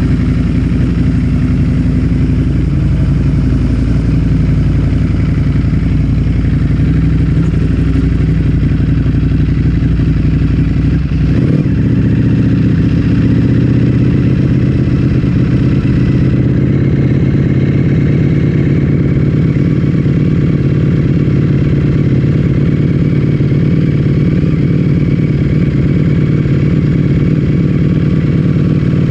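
Ducati Streetfighter V4S's V4 engine with an Akrapovic full-system exhaust idling steadily just after start-up, with no revs. A short knock comes about eleven seconds in, after which the low rumble shifts slightly.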